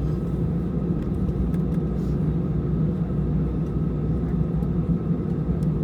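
Steady low rumble of an Airbus A320's engines and airflow as heard inside the passenger cabin, with a faint steady hum above it; no change in pitch or level.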